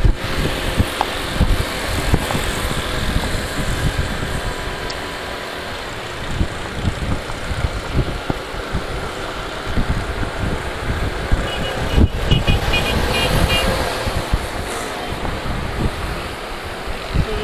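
Yamaha YBR 125 motorcycle under way: its single-cylinder engine running steadily, mixed with wind buffeting the camera microphone and surrounding traffic. About two-thirds of the way through, a brief run of short high beeps.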